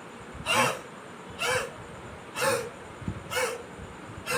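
A man's forceful open-mouthed breaths out (huffs), four in a row about a second apart. This is the huffing step of the active cycle of breathing technique, used to shift phlegm from the chest after COVID.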